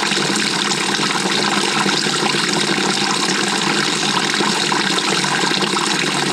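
Water rushing steadily inside the drum of a GE GTW220ACKWW top-loading washing machine, heard from within the tub during the wash cycle.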